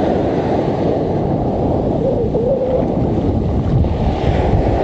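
Sea surf breaking and washing up a beach, with strong wind buffeting the microphone.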